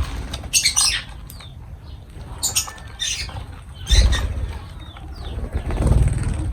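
Lovebirds giving short high chirps and squawks, with several bursts of wing flapping and rustling, and low thumps about four and six seconds in.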